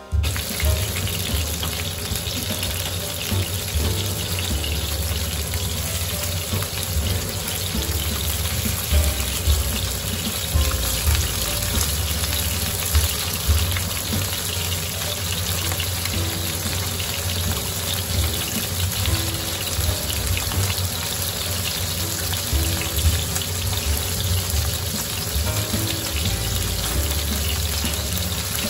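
Pieces of cod fillet frying in hot oil in a nonstick pan: a steady sizzle with small crackles here and there.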